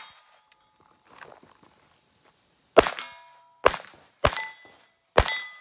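Rimfire (.22) pistol shots at steel plates, each sharp crack followed by the steel target ringing: a fainter shot about a second in, then four louder ones spaced under a second apart near the end, the last one ending the string.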